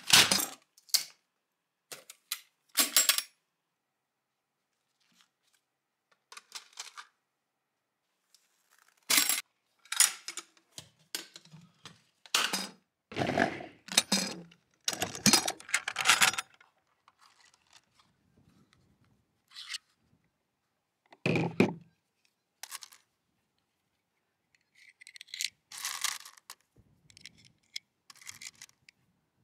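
Steel ammunition can being handled: it is set down with a clunk, then its latch and lid are worked open with clanks and scrapes. Near the end, loose 9mm cartridges clink and click as they are pressed into a Luger P08 magazine.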